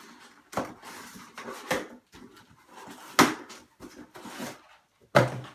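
Cardboard box being handled and opened by hand: rustling and scraping of cardboard, with four sharp knocks, the loudest near the end.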